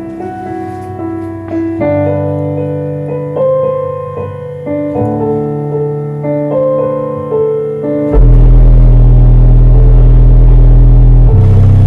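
Electronic music played loud through a workshop stereo: melodic notes over a bass line, then about eight seconds in the bass drop hits and a sealed-box Rockford Fosgate Punch P3 subwoofer pushes out heavy, much louder deep bass.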